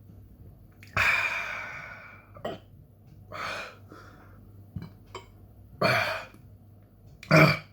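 A man hiccuping repeatedly between heavy breaths, hiccups brought on by the burn of a Carolina Reaper chili pod. The loudest is a breathy burst about a second in that trails off, with sharper hiccups near the end.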